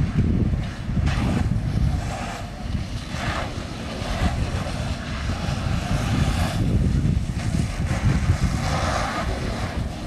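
Fire hoses spraying water onto a burning semi-truck, a hiss that swells and fades every second or two over a steady low rumble.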